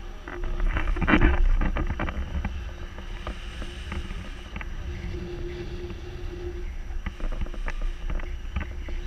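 Wind buffeting the microphone of a camera on a selfie stick in a paraglider's airflow: a steady low rumble with scattered knocks and rustles, loudest about a second in.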